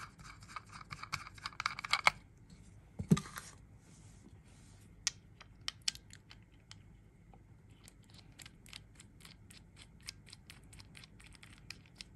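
Small clicks, scratches and rustles of fingers working cotton wick into the coils of a rebuildable tank atomizer's deck, with one sharper knock about three seconds in.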